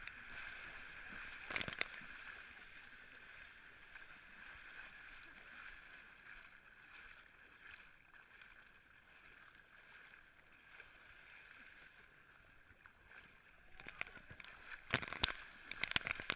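Water splashing in the shallows, faint for most of the time over a steady high whine, with one sharp splash about two seconds in. Near the end come several loud splashes as water is thrown at the microphone.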